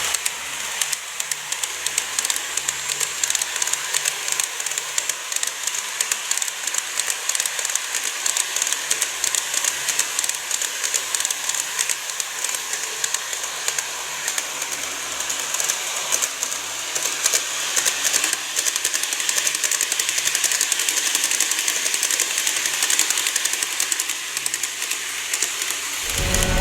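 Model train running along its track: rapid, continuous clicking of the small wheels over rail joints with a steady whirring of the model's motor.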